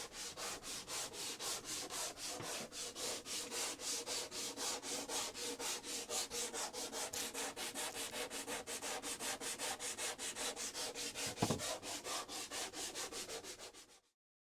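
Sandpaper rubbed back and forth by hand in quick, even strokes, about five a second. There is one dull thump about eleven seconds in, and the sanding stops abruptly near the end.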